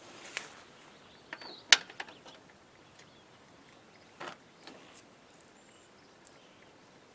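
A few light clicks and clinks of a metal mower-deck washout port fitting and its bolt being handled and set against the deck, the sharpest nearly two seconds in, with a short scrape a little after four seconds.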